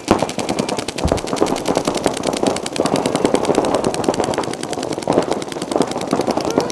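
Several paintball markers firing rapid, overlapping streams of shots, a dense, continuous crackle of pops.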